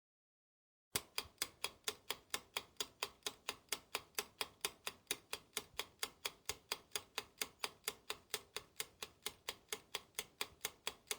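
Clock ticking sound effect: sharp, even ticks at about four a second, starting abruptly about a second in.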